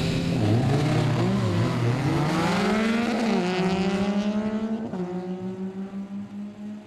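Two drag-racing motorcycles launching and accelerating hard away down the strip, engine notes climbing in pitch with sharp drops at two upshifts about three and five seconds in. They fade with distance near the end.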